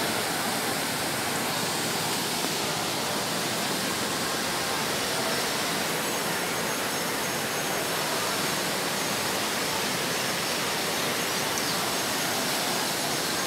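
The Thamirabarani River in flood, rushing over rocky rapids: a steady, even noise of fast water that does not let up.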